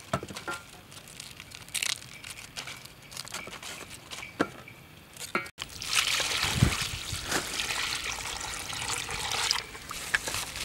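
Water pouring into a stainless steel bowl of cut napa cabbage leaves, a steady splashing pour that starts about halfway through and lasts about four seconds. Before it, a few light taps.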